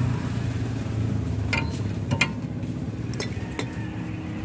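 About four sharp metallic clinks of a steel 19 mm open-end wrench against the tie-rod jam nut of a Suzuki DA63T rack end as the nut is loosened, each ringing briefly. The loudest comes a little past two seconds in. A steady low hum runs underneath.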